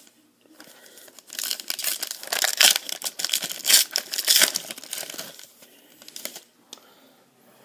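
A foil trading-card pack being torn open and crinkled by hand: a dense crackling rustle for about four seconds, starting a second or so in, that then drops to a few soft crinkles.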